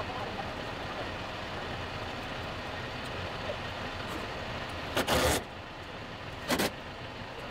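John Deere tractor's diesel engine running steadily. Two short, loud bursts of sharper noise cut in about five and six and a half seconds in, the first longer than the second.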